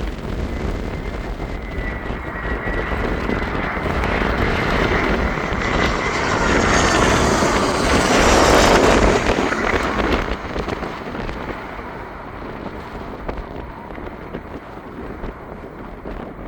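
Airbus A319 jet airliner on its landing approach passing close by. The engine noise swells with a thin whine and peaks about eight to nine seconds in, then fades away, with wind buffeting the microphone throughout.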